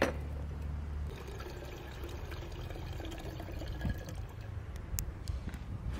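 Water running from the tap of a plastic water jug into a small steel kettle, a steady filling trickle starting about a second in. A single sharp click comes near the end.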